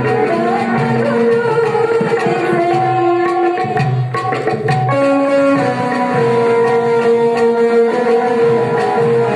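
Indian devotional song accompaniment: tabla keeping a rhythm under a melody of long held notes on keyboard and harmonium.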